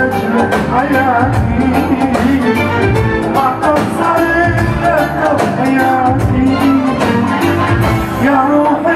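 A male singer sings an Iraqi Arabic pop song live through a microphone, over an amplified band with a steady beat.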